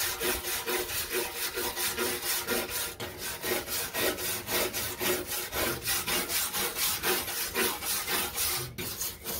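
Hand wire brush scrubbing rust and flaking paint off a metal lawn mower deck, in quick back-and-forth strokes about three to four a second, with a brief pause near the end.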